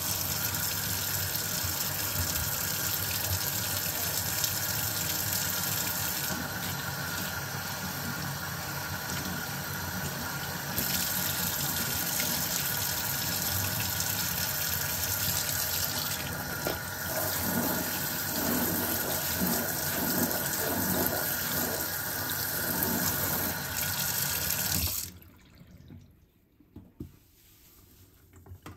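Kitchen tap running steadily into a stainless steel sink, the stream splashing on the steel basin as it is rinsed. The water is shut off near the end and the sound cuts off suddenly.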